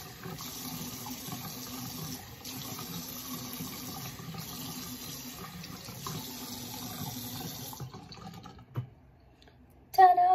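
Bathroom tap running into a sink with splashing as a face is rinsed, cutting off about eight seconds in. A single knock follows, and right at the end a woman's voice starts humming, the loudest sound of all.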